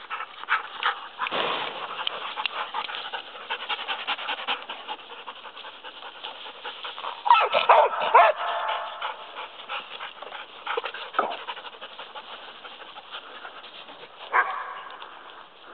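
Dogs at play panting, with constant rustling and scuffling through dry grass, and a short loud outburst of dog vocalising about halfway through.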